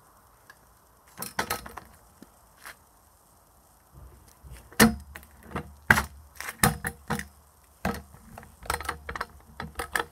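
Sharp clacks and knocks of a kick scooter's wheels and deck striking a concrete path, scattered at first, then coming thick and fast from about five seconds in.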